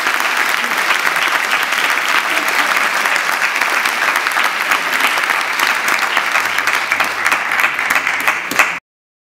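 Audience applauding at the end of a song, a dense, steady clapping that cuts off suddenly near the end.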